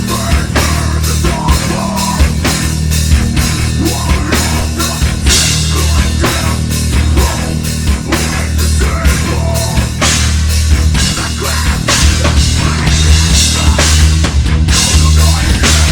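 A heavy metal band playing loud and live: distorted guitars, bass and a drum kit, with regular drum hits through a steady driving rhythm.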